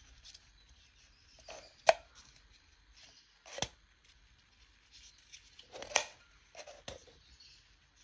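Plastic toy pieces being handled: four sharp clicks or knocks, the loudest about two and six seconds in, with light rustling between them.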